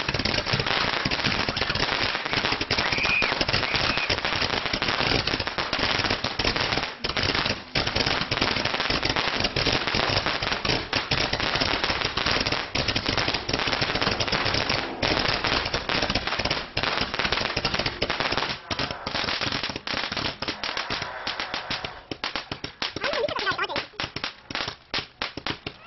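Ground fireworks going off as a dense, rapid crackle of firecracker pops, thinning into scattered pops near the end as they burn out.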